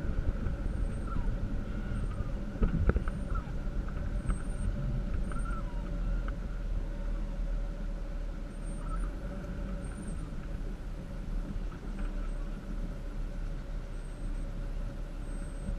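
A 4x4 driving slowly over a bumpy dirt forest track: a steady low engine and tyre rumble with a constant hum, and a few short knocks and rattles as it goes over bumps, the loudest about three seconds in.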